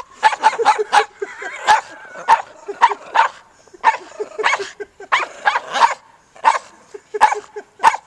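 Dogs barking and yipping in play while wrestling in snow: a quick, irregular string of short, sharp barks, about two a second.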